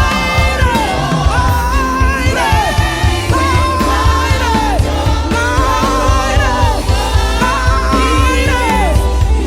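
Live gospel praise-and-worship music: a choir singing over a band with a strong bass.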